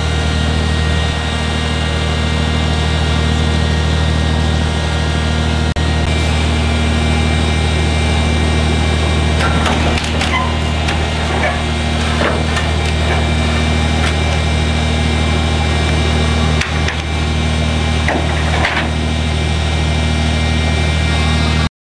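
Crane engine running steadily with a deep, even hum while a suspended reef module is lowered onto a piling, with a few scattered knocks and clanks from about nine seconds in.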